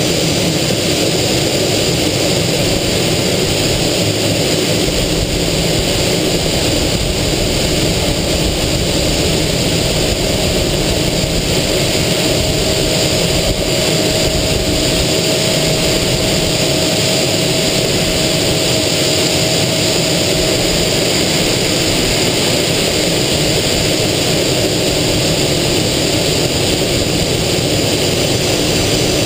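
Aero L-29 Delfín's Motorlet M-701 turbojet and rushing airflow heard from inside the cockpit: a loud, steady noise with a high whine, and a faint steady tone coming in for a while in the middle.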